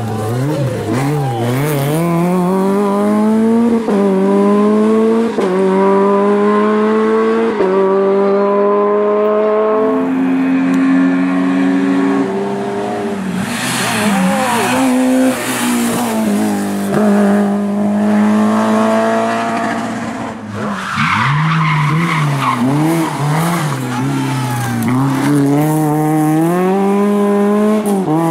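Race car engines at full throttle, revving up through the gears, the pitch climbing between each shift and falling back at every change, with several cars passing in turn. Tyres squeal at times.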